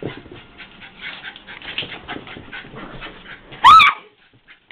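Dog panting rapidly, about four to five breaths a second, winded from chasing a laser pointer. About three and a half seconds in comes one loud, short, high yelp.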